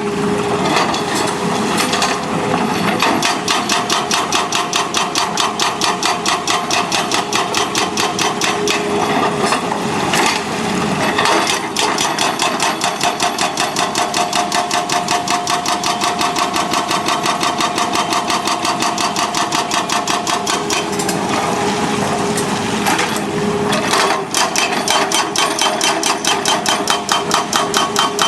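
Excavator working, with a fast, even mechanical knocking and a steady whine underneath. The knocking slackens briefly twice.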